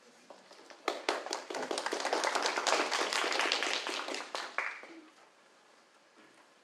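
Audience applauding: a round of clapping starts about a second in, lasts about four seconds and dies away.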